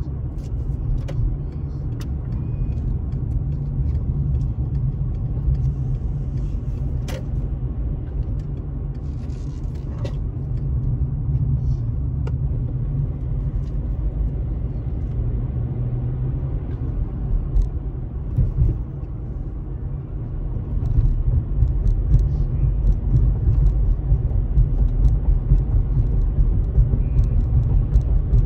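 Car driving at town speed, heard from inside the cabin: a steady low road-and-engine rumble with a few faint clicks, getting louder about two-thirds of the way through.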